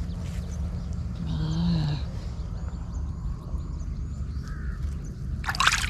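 A harsh, caw-like bird call about a second in, then near the end a brief splash as a hand dips into shallow pond water.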